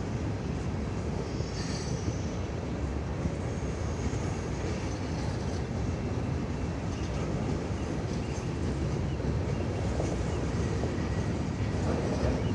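Freight train rolling past, a steady rumble of wheels on the rails, with a brief high wheel squeal about two seconds in.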